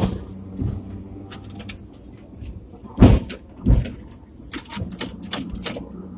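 Inside the cab of a Hong Kong tram, replica fifth-generation car No. 120, while it runs: a steady low hum, two heavy clunks about halfway, then a quick run of sharp clicks and rattles near the end.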